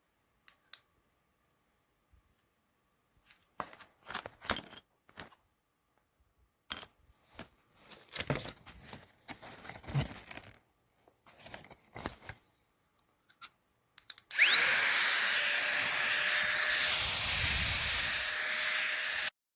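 Scattered handling clicks and knocks, then the Flextail Tiny Pump 2 mini electric air pump switches on about two-thirds through. Its fan motor spins up with a quickly rising whine and settles into a steady high-pitched whir with a rush of air, then cuts off abruptly near the end.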